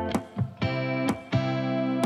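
Background music led by guitar, with sustained chords struck on a steady beat about twice a second.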